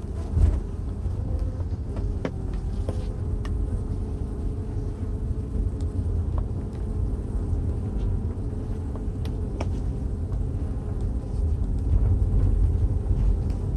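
A steady low rumble and rushing, like surf or running water, from a colony of Korean native honeybees in a box carried on the front seat of a moving vehicle, mixed with the vehicle's road noise. A faint steady hum runs under it, with light clicks now and then.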